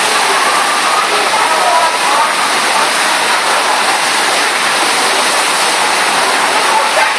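Loud, steady rush of water from a FlowRider standing-wave simulator, a thick sheet of pumped water surging up the padded slope beneath a bodyboarder.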